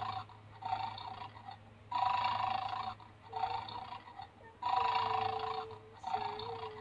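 Recorded snoring from the speaker of a battery-operated 'bad dog' bone-guarding toy, a regular cycle of snores about every second and a half, long and short breaths alternating. The snoring means the toy dog is in its 'asleep' state, guarding its bone.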